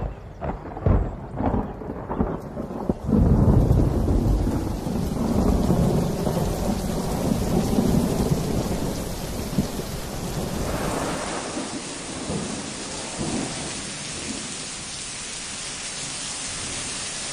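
Thunderstorm: a few sharp cracks of thunder, then a long rolling rumble that fades into the steady hiss of heavy rain.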